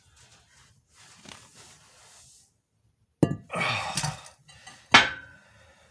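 Metal parts being handled on a workbench: a sharp clank about three seconds in, a second of clatter, then a ringing metallic clink near the end.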